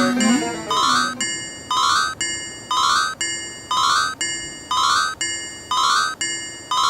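Electronic, keyboard-like level-crossing warning chime ringing steadily about twice a second. Each stroke is a quick rising blip, and the strokes alternate between two slightly different tones.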